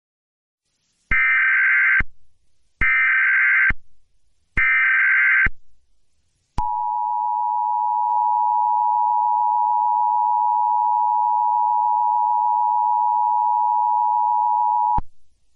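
Emergency Alert System SAME header, three short data bursts about a second each, followed by the two-tone EAS attention signal held steady for about eight seconds and then cut off. It is the standard lead-in that announces an emergency alert message.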